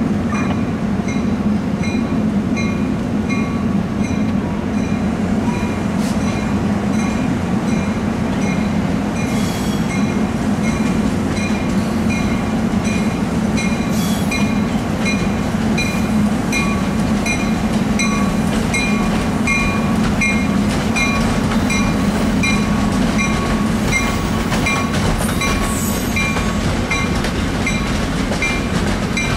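Locomotive bell ringing steadily, about two strokes a second, over the low rumble of a commuter train of bi-level coaches rolling slowly past.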